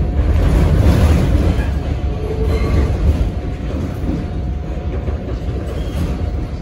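An R68 subway car running through a tunnel, heard from inside the car: a heavy, steady rumble of wheels on rail and car body. It is loudest in the first couple of seconds and eases slightly after that.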